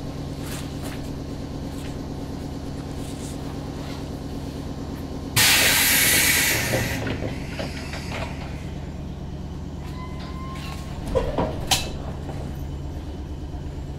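Inside a JR West 105 series electric multiple unit car, the onboard equipment hums steadily. About five seconds in, a sudden loud hiss of released compressed air fades out over a second and a half. A few clunks follow near the end.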